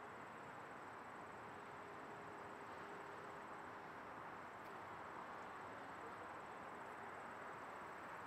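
Faint steady outdoor ambience: a continuous high-pitched insect trill, typical of summer-evening crickets, over an even hiss. A faint low hum fades out about halfway through.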